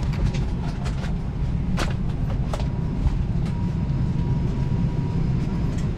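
Boeing 737-800 cabin on the ground: a steady low rumble, with scattered clicks and knocks and a faint steady whine in the second half.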